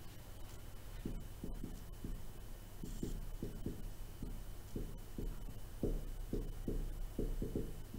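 Dry-erase marker writing on a whiteboard: a quick, irregular run of short strokes and taps, several a second, over a low steady hum.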